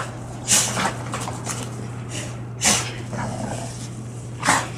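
Two pit bulls play-fighting: three short noisy bursts of huffing and scuffling, about two seconds apart, over a steady low hum.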